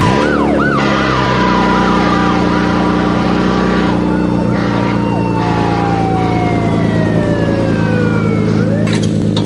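Electronic emergency-vehicle siren: a few quick rising-and-falling whoops at first, then long slow downward wails, over a steady buzzing hum.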